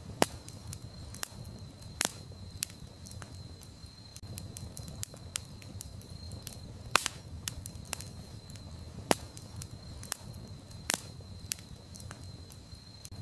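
Campfire burning, with wood crackling in many small snaps and a handful of louder pops over a low rumble of flame, and a thin steady high tone behind it.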